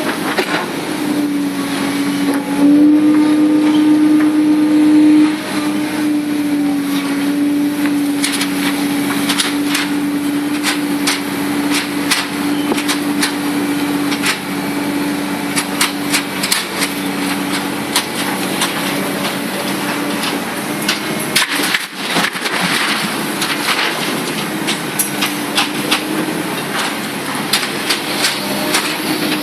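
Komatsu PC300-8 hydraulic excavator running, its diesel engine and hydraulics making a steady hum that swells for a couple of seconds near the start. Many sharp knocks and clacks come through most of the rest of it, the sound of the machine working.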